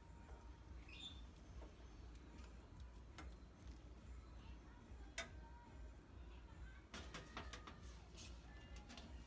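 Faint clinks of a metal ladle against a ceramic bowl and steel pot as soup is ladled, over a low steady hum, with one sharper clink about five seconds in and a small cluster of taps about two seconds later.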